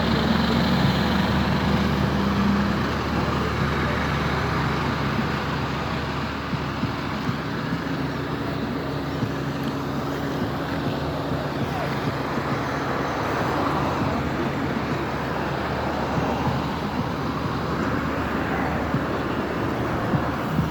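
Steady road traffic noise with a motor vehicle engine running close by, its low hum strongest for the first couple of seconds.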